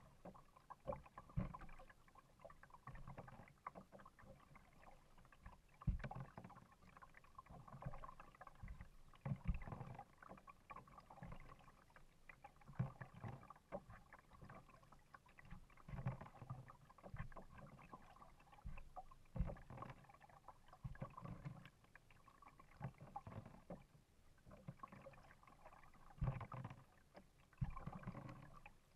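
Kayak paddling on calm lake water: the paddle blades dipping and pulling through the water in soft strokes about every one to two seconds, with water sloshing against the hull.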